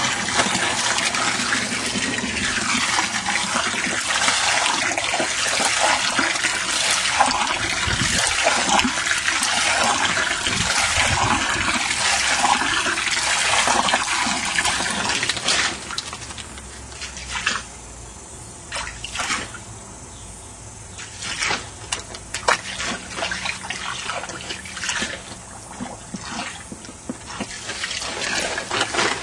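Water spraying from a garden hose nozzle onto a tarp and into shallow water, a steady, loud spray. A little past halfway the spray drops away, leaving scattered splashes and drips.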